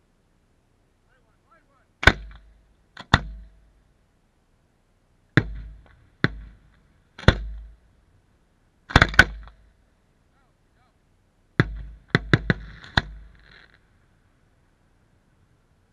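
Aerial fireworks bursting: about a dozen sharp bangs at irregular intervals starting about two seconds in, some in quick pairs and a fast cluster near the end, with a brief crackle after the cluster.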